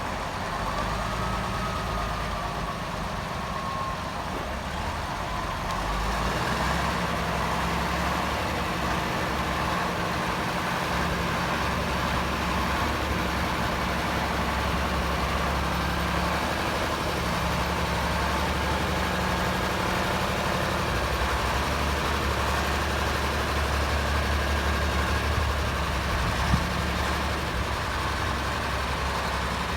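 DZ-122B motor grader's diesel engine running steadily, getting louder about six seconds in. A single sharp knock near the end.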